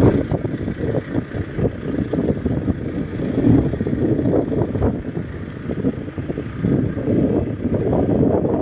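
A vehicle engine running at a hay-truck unloading, heard as a loud, uneven low-pitched noise.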